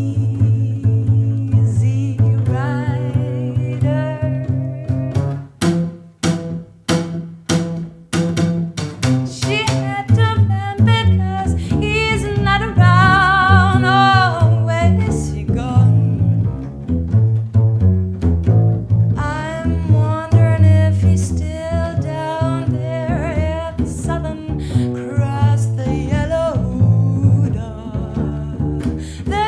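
A double bass and a woman's voice performing a jazz blues as a duo: the bass holds low notes throughout, and the singing wavers with vibrato above it. A run of sharp knocks, about seven in two seconds, sounds about six seconds in.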